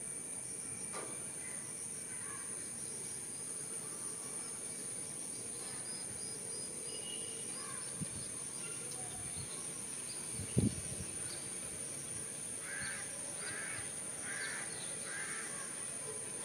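Outdoor birdsong ambience over a steady high-pitched insect drone: faint bird chirps, then four harsh caw-like bird calls in quick succession near the end. A single low thump about two-thirds of the way through.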